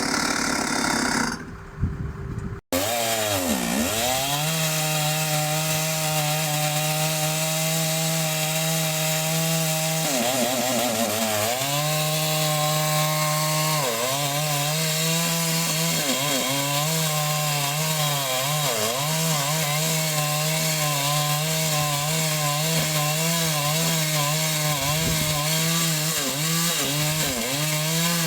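Chainsaw running at high revs, its pitch dipping briefly several times and recovering as it works. It starts abruptly about two and a half seconds in, after a short different machine sound cuts off.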